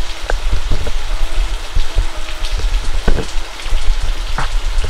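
Handling noise from a hand or cloth rubbing over the camera and its microphone while grease is wiped off the lens: a loud, irregular low rumble with crackling that starts abruptly.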